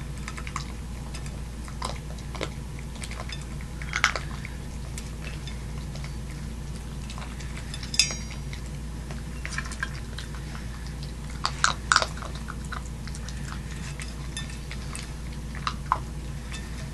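Boston Terrier puppy eating from a metal bowl: irregular small clicks of chewing and of teeth and food against the bowl, with a few louder clinks about four, eight and twelve seconds in.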